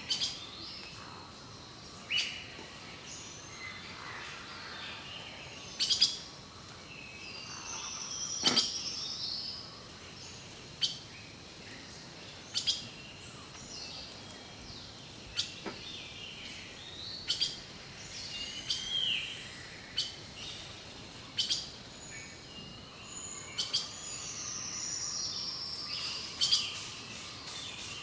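Songbirds chirping and whistling, with many short calls overlapping, over a faint steady hiss. Sharp taps or clicks come every second or two and are the loudest sounds.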